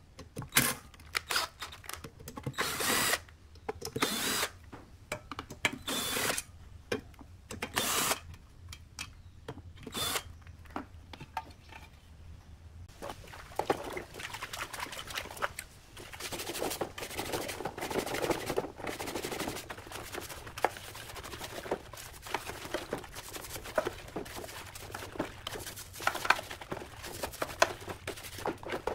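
Cordless drill spinning in about ten short bursts on the screws of a subwoofer's plastic frame. About halfway through it gives way to steady scrubbing with a stiff brush and sloshing in a basin of soapy water as the frame is washed.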